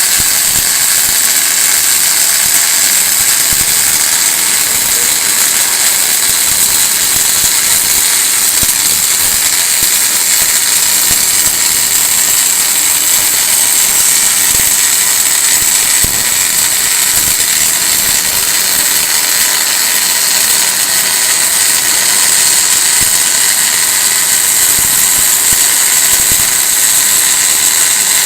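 Welding arc of a linear seam-welding machine on rectangular tube: a loud, steady high-pitched hiss with scattered crackles.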